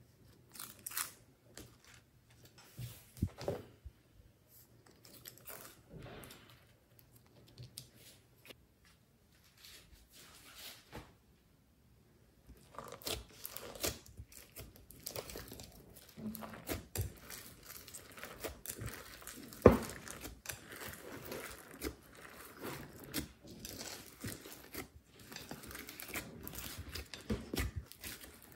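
Hands squishing and mixing slime in a glass bowl: sticky crackling and small pops, dense and continuous from a little under halfway, with one sharp click about two-thirds through. Before that there are only sparse taps and rustles as the slime pieces are handled.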